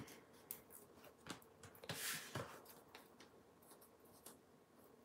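Faint rustling, scraping and light taps of paper handling as a foam adhesive dimensional is peeled from its backing sheet and a cardstock circle is pressed onto a paper box, with a slightly louder scrape about two seconds in.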